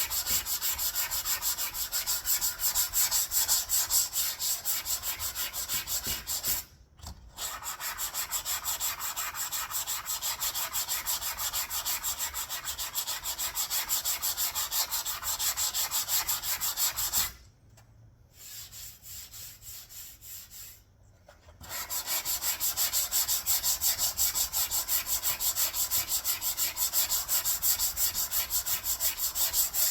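Sanding block rubbed back and forth by hand over cured body filler on a car panel: a steady run of rasping strokes. It breaks off briefly about seven seconds in. Past the middle it drops to a few lighter strokes for several seconds, then resumes at full pace.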